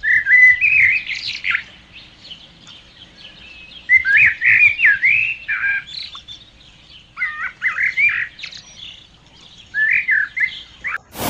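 A songbird singing in short bouts of quick whistled, warbling notes that slide up and down, four phrases a few seconds apart.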